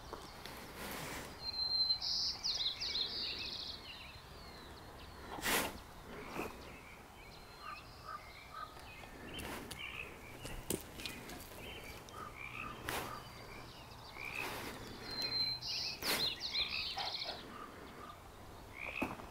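A duck's soft calls, small chirps scattered throughout, with a short high trill about two seconds in and again near the end. Sharp clicks and knocks are mixed in.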